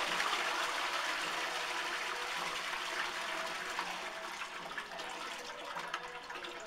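Toilet flushing: water rushing loudly into the bowl, slowly easing over the last few seconds as the flush dies down.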